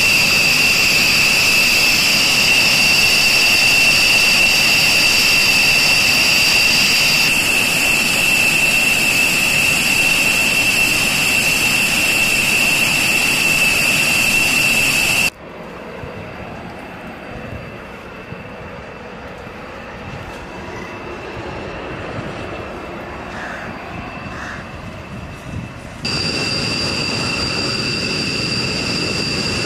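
B-1B Lancer's F101 turbofan jet engines running on the ground with a loud, steady high-pitched whine. About halfway through the sound cuts abruptly to a much quieter, duller engine noise. Near the end the loud whine comes back as a B-1B taxis.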